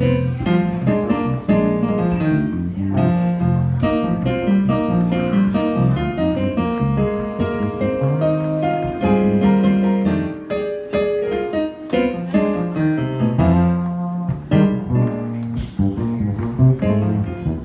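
Jazz piano playing, with low bass notes under chords and melody.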